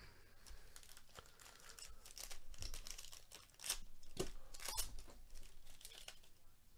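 Foil trading-card pack of Panini Absolute Football being torn open by hand, the wrapper crinkling with a run of irregular crackles and a few sharp rips, loudest about four seconds in.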